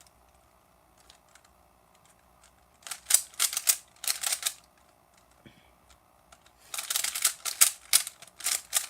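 Plastic Rubik's Cube being turned fast, its layers clicking and clacking in quick runs: short runs about three and four seconds in, then a longer run from about seven seconds on.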